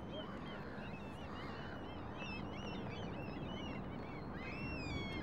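A flock of birds calling: many short, overlapping chirps that grow busier about two seconds in, with a longer falling call near the end, over a steady low rumble of outdoor background noise.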